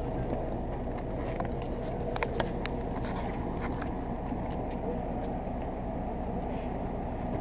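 Coach's engine idling, a steady low rumble, with a few sharp clicks a little over two seconds in.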